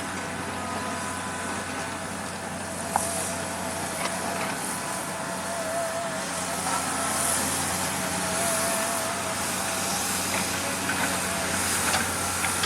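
Diesel engine of heavy construction machinery running steadily, with a thin wavering whine above it and a few scattered clicks and knocks.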